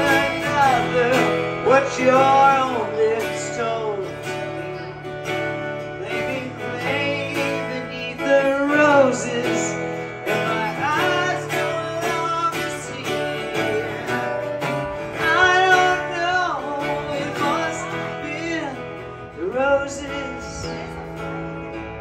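A live acoustic guitar being strummed, with a male voice singing gliding phrases over it that come and go every few seconds.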